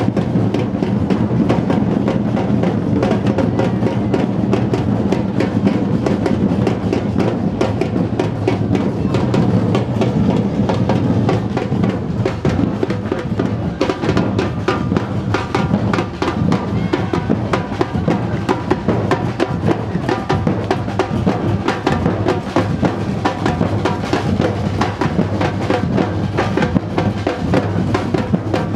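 Marching drum band playing: snare drums and bass drums beating a rapid, continuous rhythm.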